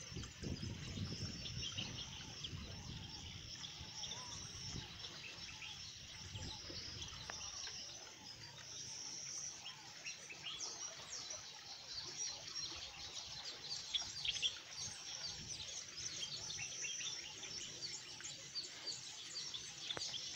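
Many small birds chirping and calling in a dense, overlapping chorus, with a low rumble in the first few seconds.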